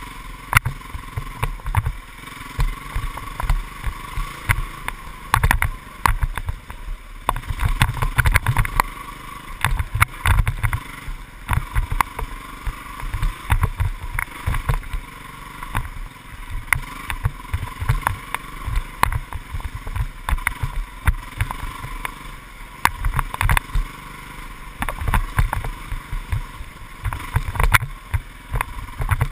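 Dirt bike engine running while riding a rough wooded trail, heard through a bike-mounted camera housing, with frequent irregular knocks, rattles and thumps as the bike goes over bumps and roots.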